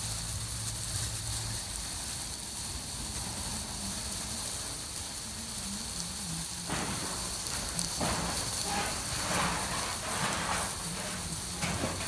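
Cellulose fibre insulation being blown from a pump hose: a steady hiss with a low hum under it. From about halfway through, a rougher, patchier rush joins in.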